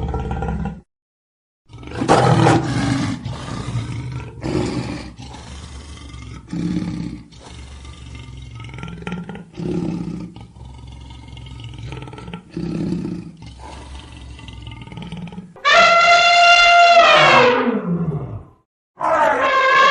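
A big cat roaring: a series of low roars and grunts repeated every second or two. Near the end come two loud, high calls whose pitch slides down, from a different animal.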